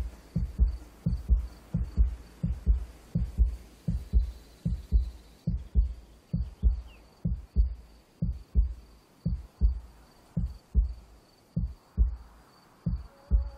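Heartbeat sound: a steady run of low lub-dub double thumps, about two a second, growing slightly softer near the end, with a faint steady high tone beneath.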